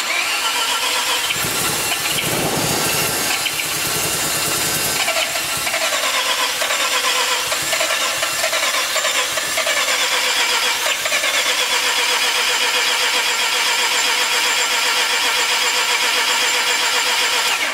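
Mazda FC RX-7's bridgeported 13B rotary engine in a long start attempt on the starter: a whine rising as it spins up, strong pulsing for a few seconds, then a steady drone that dies away near the end.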